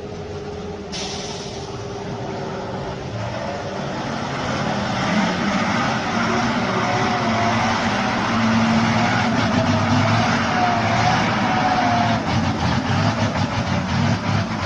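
A motor vehicle engine running, growing louder about five seconds in and staying loud.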